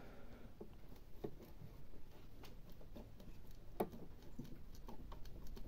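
Faint, scattered metal clicks and light knocks, one a little louder nearly four seconds in: the camshaft of a Lada Granta 8-valve engine being moved by hand in its bearing seats to check for play, which the mechanic suspects comes from worn camshaft bearing seats.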